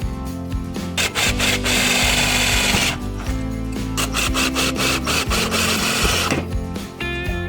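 Background music with a steady beat, and a power tool running for about two seconds from about a second in, a harsh grinding hiss over the music.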